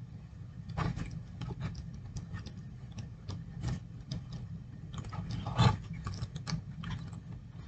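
Small plastic clicks, taps and rubbing from an articulated plastic action figure being handled and posed, irregular throughout, with a somewhat louder knock about two thirds of the way in, over a steady low hum.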